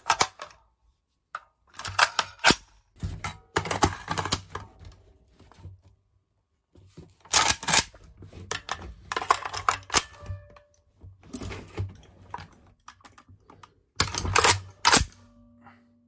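Military assault rifles (Galil ARM and SAR-80) being reloaded: steel magazines clicked into the magazine well and the bolt or charging handle pulled back and let slam forward. It comes as several separate groups of sharp metallic clicks and clacks with short pauses between them.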